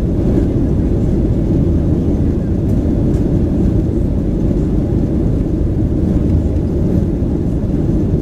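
Steady low roar of a Boeing 737-900 cabin in flight: engine and airflow noise heard from a window seat inside the cabin.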